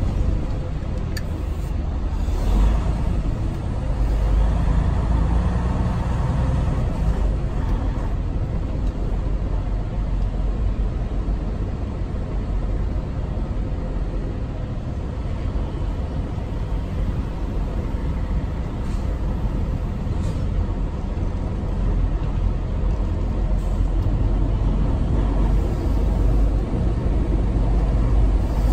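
Semi-truck's diesel engine running steadily with cab and road noise as the truck drives slowly, heard from inside the cab.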